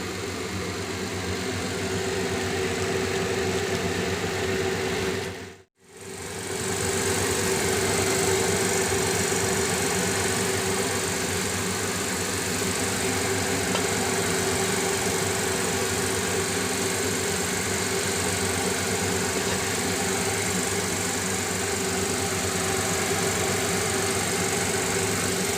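Kitchen range-hood fan running steadily: a constant hum with an even hiss over it, broken by a short gap about six seconds in.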